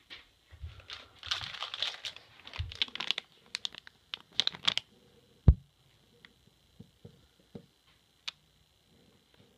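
Metallic anti-static bag of an LED strip crinkling as it is handled, in dense bursts over the first five seconds, followed by a single thump and a few faint ticks.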